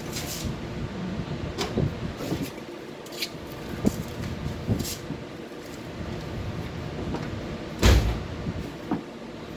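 1970 BMW 2002's four-cylinder engine running, with irregular low grinding and knocks from the clutch as the pedal is worked, and one loud thump about eight seconds in. The noise comes only while the clutch pedal is being released.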